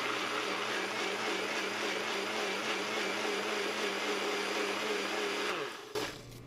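NutriBullet personal blender running steadily, its motor pureeing a thin avocado-tomatillo salsa. The motor winds down with a falling whine about five and a half seconds in, followed by a short knock.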